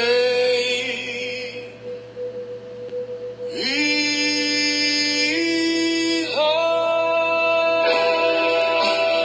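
A pop-rock ballad with a male singer holding long notes over guitar. The voice slides up into a new held note about three and a half seconds in, then steps up twice more.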